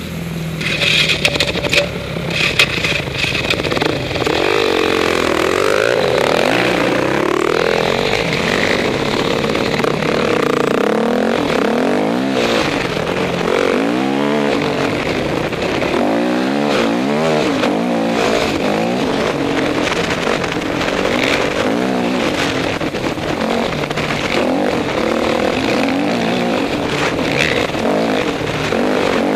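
Dirt bike engine heard from on board, revving up and down over and over as the rider accelerates, shifts and backs off along a rough trail. A few sharp knocks come in the first few seconds.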